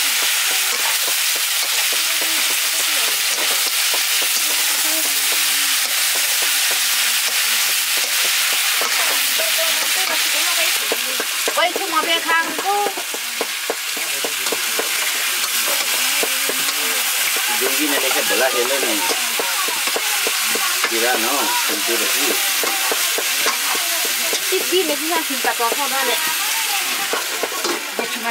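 Chicken pieces sizzling steadily as they fry in an iron karahi over a wood fire, stirred with a wooden spatula.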